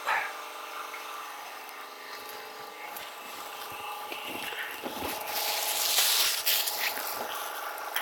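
Plastic packaging of a pair of work gloves crinkling as it is handled, loudest for a couple of seconds past the middle, with a few light knocks over a steady faint hum.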